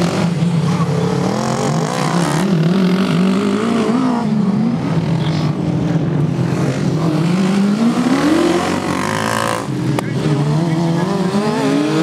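Racing ride-on lawn mower engines running hard as several mowers go round the track. Their pitch rises and falls as the drivers accelerate and ease off, with a long rising rev about two-thirds of the way through and another near the end.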